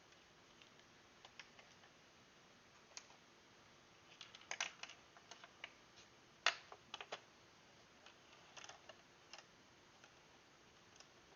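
Faint, scattered small clicks and taps of a circuit board and small parts being handled and set down on a workbench during soldering, with the loudest tap about six and a half seconds in.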